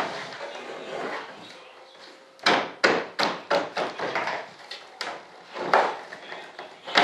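Rubbing and scraping, then from about two and a half seconds in a quick run of sharp knocks and cracks, several a second, as a composite wing is worked loose from its mold.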